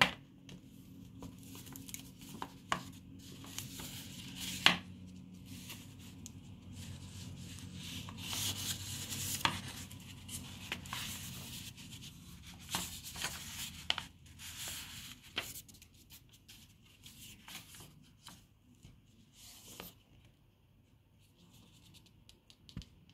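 Hands handling a hardback book: pages riffled and turned with papery rustling, and hands rubbing against the cover, broken by scattered sharp knocks and clicks.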